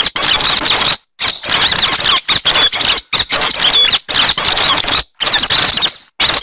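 Recorded calls of hét xoan birds, played as a lure for bird trapping: loud, dense, high-pitched squeaky chattering with many overlapping notes. The calls are broken by several abrupt short silences, the first about a second in.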